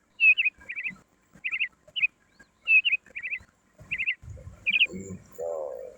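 A small bird chirping repeatedly in quick groups of about three high notes, with a short, lower call near the end.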